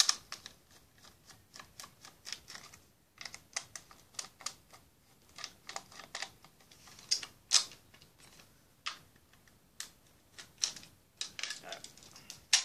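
Small screwdriver working the screws out of a plastic Nerf Recon blaster shell: irregular light clicks and ticks of the metal tip and plastic, a few a second, with a cluster of louder clicks near the end.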